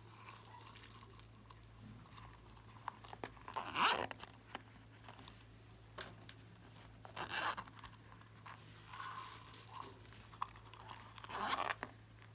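Silicone zip coin purses handled close to the microphone: four short crunchy rustles spaced a few seconds apart, with small clicks between them, over a faint steady hum.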